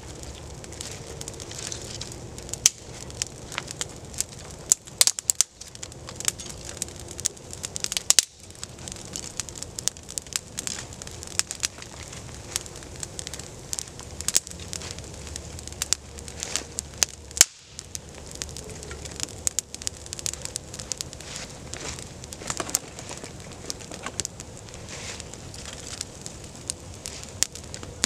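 Newly lit campfire of birch bark, fat wood and small dry sticks burning, with frequent sharp pops and crackles over a steady hiss of flame.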